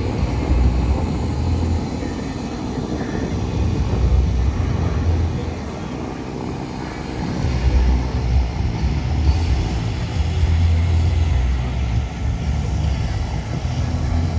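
Aircraft noise at an airshow: a loud, uneven low rumble that swells and fades.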